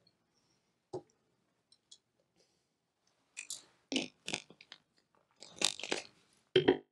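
Short mouth noises close to a microphone: lip clicks and breathy bursts, a single click about a second in and two clusters in the second half.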